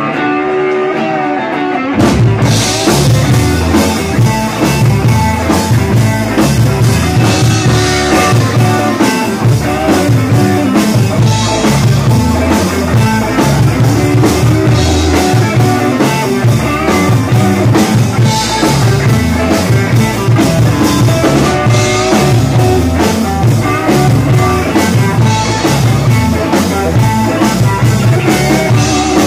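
Live rock-blues band playing an instrumental. An electric guitar plays alone at first, then about two seconds in the drum kit and the rest of the band come in loud, with a steady driving beat.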